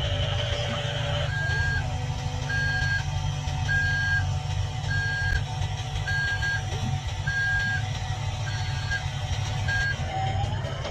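A truck reversing beeper sounding evenly, about one beep a second, over a steady low engine rumble. It stops shortly before the end.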